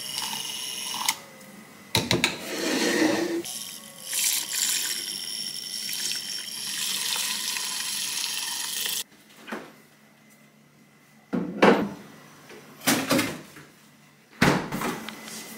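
Handheld milk frother whirring with a thin high whine as it churns milk and whey protein in a plastic tub, dipping briefly just after a second in and cutting off abruptly about nine seconds in. After it stops come a few sharp knocks and clatters of tubs and lids being handled and a freezer drawer being opened.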